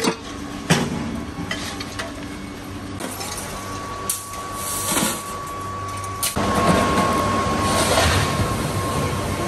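Scrap steel clanking and clattering as pieces are tossed into a basket and tipped from a wheelbarrow, a few sharp metal impacts over steady industrial noise with a thin high hum. At about six and a half seconds the noise becomes louder and denser.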